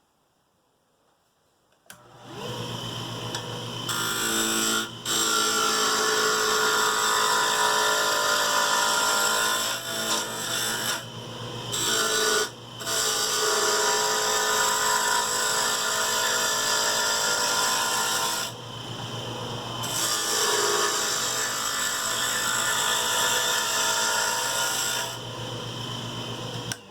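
A wood lathe's motor starts about two seconds in and runs with a steady hum, while a turning tool cuts a spinning square black walnut blank, taking its corners off in long passes with a few short breaks. The cutting stops near the end and the motor keeps running.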